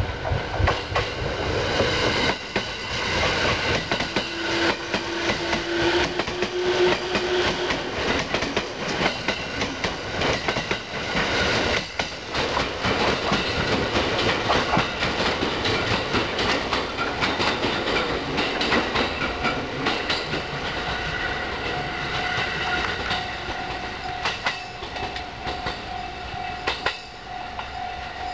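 Electric commuter train running through the station, wheels clattering over the rail joints, the clatter thinning and quieter in the second half as it slows, with a steady whine from about two-thirds of the way through.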